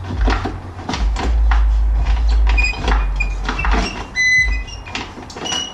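Repeated metal clinks and knocks from the rear brake caliper and drive chain of a BMW S1000RR sport bike being handled, several of them ringing briefly in the second half.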